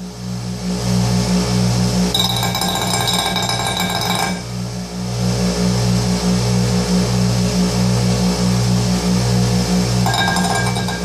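Bench grinder grinding down the hardened, mushroomed poll of an old steel axe head: the steel scrapes harshly against the spinning wheel over the steady hum of the grinder motor. The grinding eases for about a second around four seconds in, then resumes.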